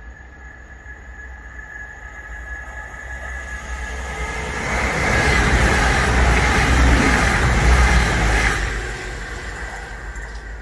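Class 222 Meridian diesel-electric multiple unit passing through a station at speed. It builds steadily as it approaches, is loudest for about three seconds as the carriages go by, and then fades as it draws away.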